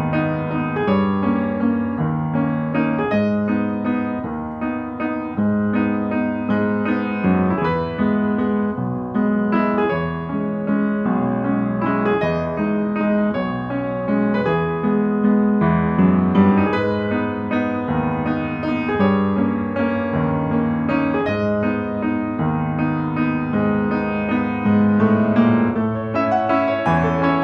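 Background piano music, a steady run of notes changing about once a second over a low bass line.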